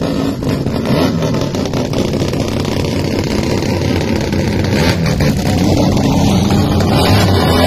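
Ferrari Formula One car engine running, its revs rising and falling.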